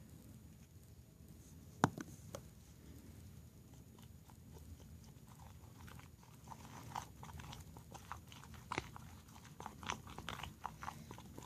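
Spoon stirring a sticky glue-and-toothpaste slime mixture, giving faint wet clicks and crackles that grow busier after about six seconds. A single sharp click comes a little under two seconds in.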